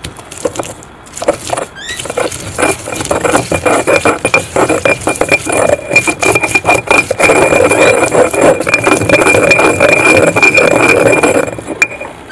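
Stone pestle grinding garlic and hot pepper in a stone mortar: rapid scraping of stone on stone with a steady high squeal running through it. It starts with a few scattered strokes, builds to its loudest about seven seconds in, and stops near the end.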